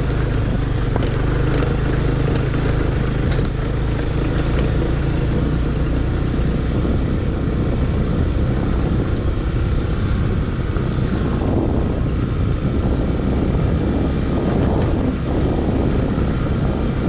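Motorbike engine running steadily at low speed while riding a rough dirt track.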